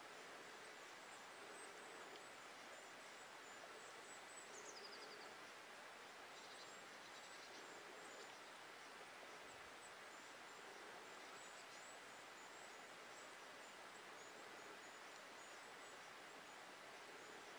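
Near silence: a steady hiss, with faint, very high-pitched bird calls now and then, including one falling call about four and a half seconds in.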